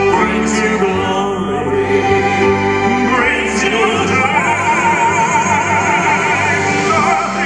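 Male operatic vocal quartet singing a ballad in harmony with a live orchestra of strings and keyboard. A higher sustained note with wide vibrato comes in about three to four seconds in.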